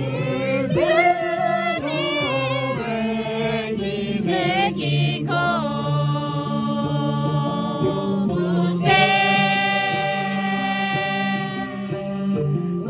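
Music: a song with singing voices whose melody bends and slides, over steady sustained low instrumental notes.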